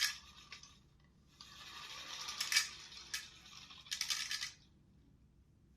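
Hard 3D-printed plastic siren parts being handled: rattling and scraping for about three seconds, with a few sharp clicks, starting about a second and a half in.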